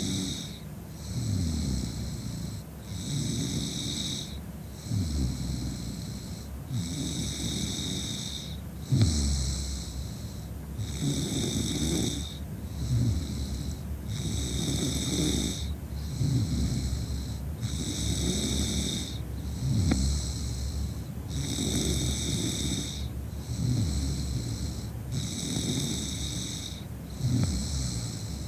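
A woman snoring in a steady rhythm, one snore about every two seconds. Each snore drops in pitch, and a hissing breath comes between them.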